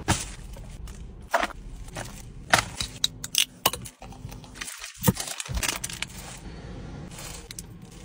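Takeaway food being handled: paper wrappers crinkling and crackling, with a run of irregular sharp clicks and crunches.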